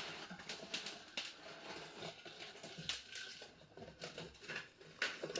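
Soft rustling, crackling and scraping as a root-bound anthurium's root ball and wet potting substrate are worked out of a plastic self-watering pot. The irregular crackles are quiet, with a few sharper clicks near the end.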